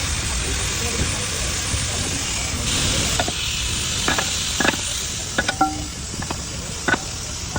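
Sharp metal-on-metal knocks and clinks, some ringing briefly, during work on a truck wheel drum's studs, over a steady hiss. The knocks come irregularly from about three seconds in, roughly eight of them.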